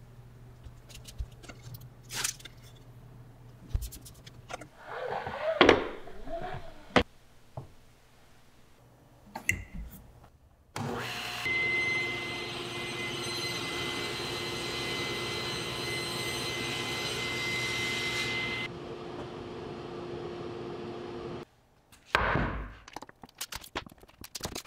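Table saw switched on abruptly partway in, ripping the edge of a hardwood board straight for about seven seconds with a steady high whine over the motor's hum, then running on without load before it is switched off and goes quiet. Before it come scattered knocks and clicks of boards and tape being handled, and after it a short loud knock.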